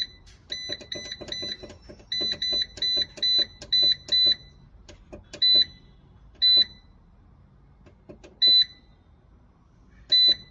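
Daxtromn Power solar inverter's control panel beeping at each key press: short, identical high beeps, first in quick runs of about four and then about seven as the up/down key scrolls through the setting codes, then single beeps a second or two apart. Faint clicks of the push-buttons come with the beeps.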